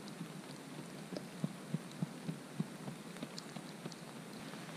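Steady rain, with a run of dull thuds, a few a second through the middle, from soil being dug out by hand for a fire pit.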